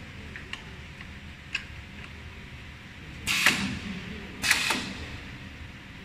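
Pneumatic up/down cylinder of the cap-locking (crimping) station on a vial filling and crimping machine, actuated twice, each stroke giving a short hiss of air. Two faint clicks come first.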